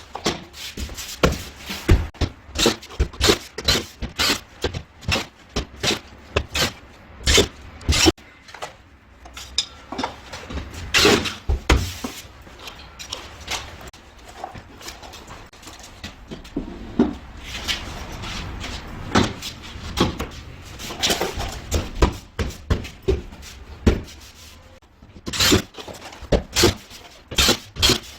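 Irregular knocks, taps and clatter of hand work with tools and materials, coming in uneven clusters with short pauses between.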